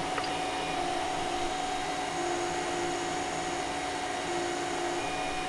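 Cooling fan on a 2.5-watt diode laser module running with a steady whoosh while the laser cuts wood. Brief pitched whines come and go several times as the stepper motors drive the laser through its moves.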